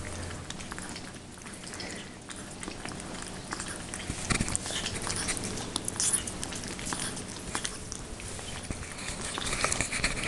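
Ferrets lapping and slurping a runny soup mash from bowls: an irregular run of small wet licks and clicks.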